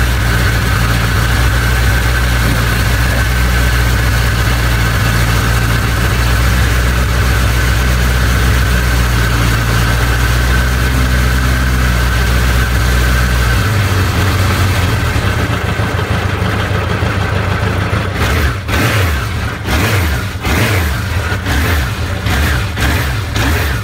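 Suzuki GSX1100S Katana's air-cooled inline-four idling steadily at around 2,000 rpm. In the last several seconds the throttle is blipped, and the engine note rises and falls in quick, uneven surges.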